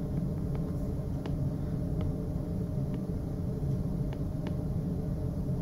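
Steady low room hum and rumble, with a few faint, short taps of a stylus writing on a tablet screen.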